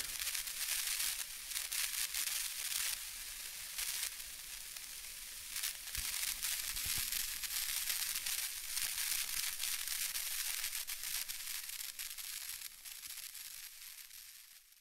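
Steady static hiss with a crackling texture, fading out near the end.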